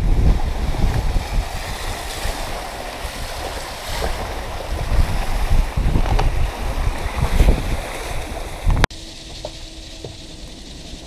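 Wind buffeting the microphone over the rush of choppy water around a sailing catamaran under way, a loud uneven rumble. About nine seconds in it cuts off suddenly to a much quieter background with a faint steady hum.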